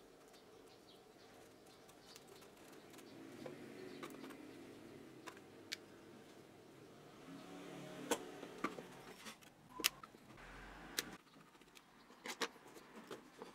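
Quiet handling of a cordless drill's plastic housing and gearbox as they are pulled apart: rubbing and scraping at first, then a run of sharp clicks and taps in the second half as parts are set down on a hard bench.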